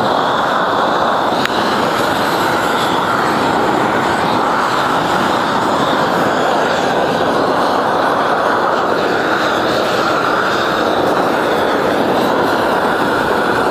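Propane roofing torch burning steadily: a loud, continuous rushing noise with no break.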